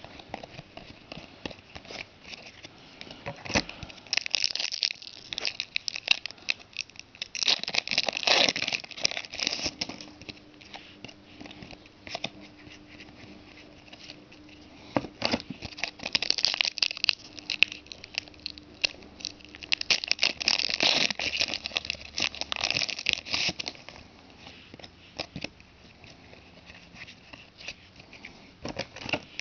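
Trading card pack wrappers being torn open and crinkled, in several bouts of rustling with quieter card handling in between.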